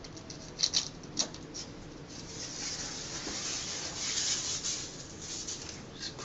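Utility knife trimming the excess edge of a printed wall-wrap film at a wall corner: a few sharp clicks about a second in, then a long scratchy rustle as the cut strip of film is worked along and pulled away from the wall.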